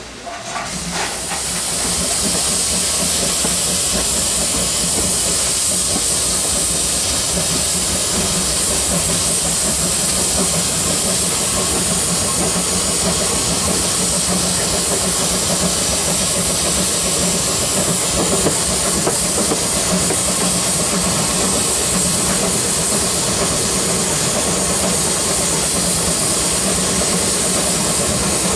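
Steady loud hiss of steam and running noise from the 1865 Neilson-built A10 steam locomotive, heard close up from its coal tender; it builds over the first two seconds and then holds even.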